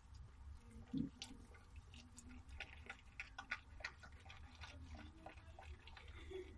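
Mother dog licking her newborn puppy clean, a faint irregular run of small wet clicks. There is one short low thump about a second in.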